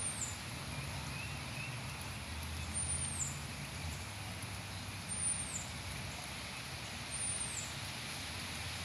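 Steady outdoor background hiss under a storm sky, with a low rumble that swells from about two to five seconds in and then fades.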